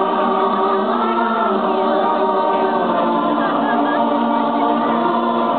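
A choir singing slow, sustained chords, the held notes shifting every second or so.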